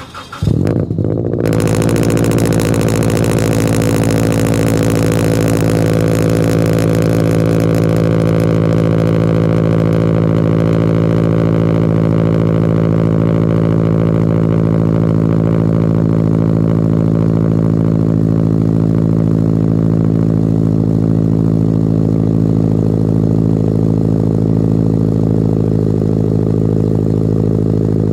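Scion FR-S's flat-four engine cranking and catching about a second in on a cold start, then settling into a loud, steady cold idle through a Gruppe-S unequal-length header, Invidia catless front pipe and Greddy Revolution RS 3-inch cat-back exhaust.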